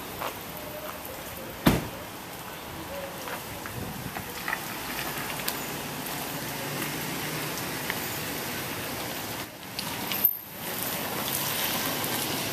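Steady outdoor hiss of a wet parking lot as an SUV drives slowly up and stops, with one sharp knock a little under two seconds in.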